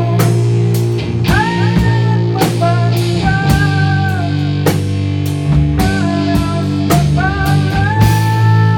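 Rock band playing live: electric bass and drum kit under a lead line of long held notes that bend upward in pitch.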